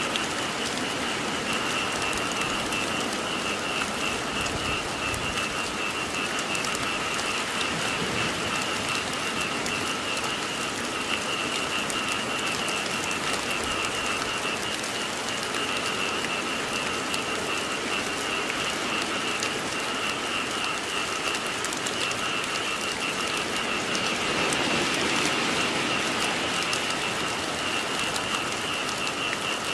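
Steady rain falling, with a chorus of frogs calling in continuous rapid pulsing trills over it.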